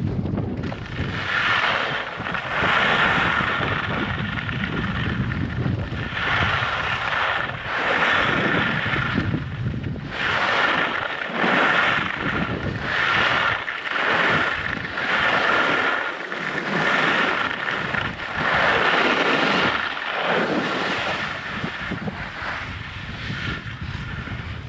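Skis hissing and scraping over packed snow, swelling and fading every second or two with each turn, over wind buffeting the microphone in a strong headwind.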